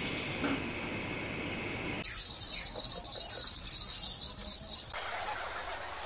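Singing insects: a steady, finely pulsing high buzz, then about two seconds in a louder, higher trill of rapid pulses that cuts off suddenly about five seconds in, giving way to a softer hissing chatter.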